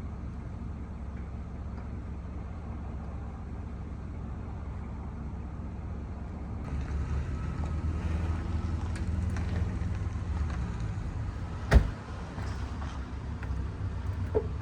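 Steady low vehicle rumble that grows louder about seven seconds in, with two sharp, loud thuds near the end, about three seconds apart.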